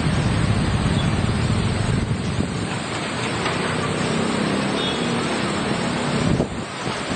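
Road traffic: a heavy vehicle passing close by, its engine rumble loud at first and easing after about two seconds, with wind buffeting the microphone.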